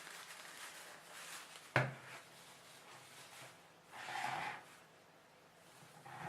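Tinsel rustling as it is folded and tucked by hand, with one sharp click a little under two seconds in and a louder rustle at about four seconds.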